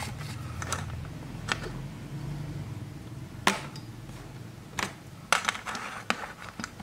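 Handling noise: a few light clicks and taps as multimeter test probes, a note pad and small plastic relays are picked up and set down on a cutting mat, the sharpest tap about three and a half seconds in.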